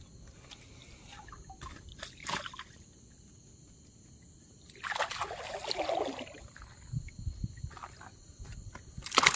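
Water splashing and streaming off a hand scoop net as it is lifted out of shallow water with a fish in it, loudest for about a second midway. Crickets trill steadily behind.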